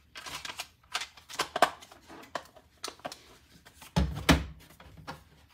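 Hard plastic graded-card slabs being handled and set down: a run of small clicks and clacks, with two louder knocks about four seconds in.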